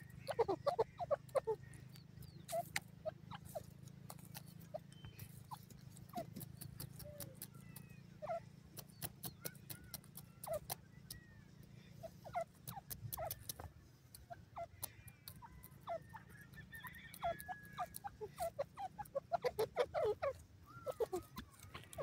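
Grey francolin giving soft, short, falling clucking notes, in a quick burst about a second in and again near the end, with scattered single notes between. Many sharp ticks run alongside as the bird pecks at dry soil.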